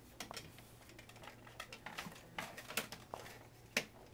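Irregular light plastic clicks and rattles as vertical blind valance parts and end caps are handled and snapped into place, with two sharper clicks in the second half.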